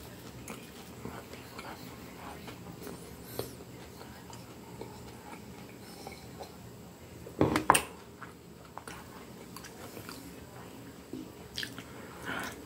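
Close-up chewing and mouth sounds of someone eating a sausage roll, with a short, loud knock-like burst about seven and a half seconds in.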